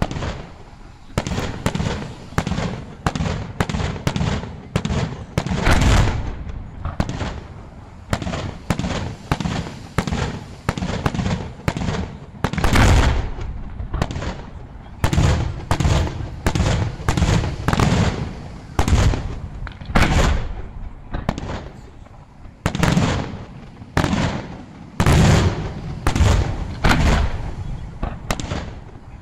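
Aerial firework shells bursting one after another in a dense barrage, about one to two booms a second without a break, with crackle between them.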